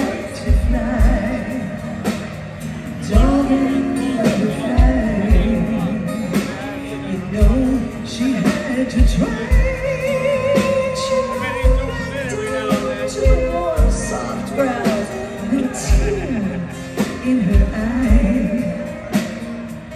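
Live rock band playing a slow ballad with women singing in harmony over it, and a kick drum beating about every second or two.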